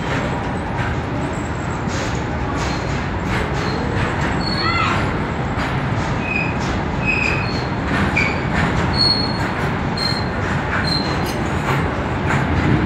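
Goods train of covered freight wagons rolling past: a steady rumble of steel wheels on rail, with a high squeal that bends in pitch about a third of the way in and several short high squeals after it.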